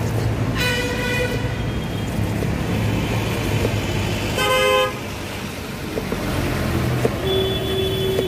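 Vehicle horns honking in passing road traffic over a steady low traffic rumble: a short toot about half a second in, a louder one around the middle, and a longer held horn near the end.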